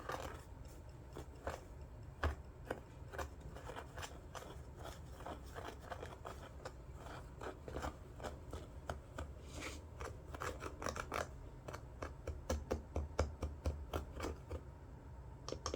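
A spoon stirring citric acid and baking soda powder in a cup: many quick, irregular scrapes and clicks against the cup, busier toward the end.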